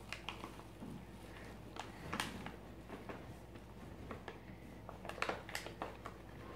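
Faint rustling and light taps as a packet of powdered cake mix is emptied into a toy mixer's plastic bowl, with a few sharper clicks about two seconds in and around five seconds in.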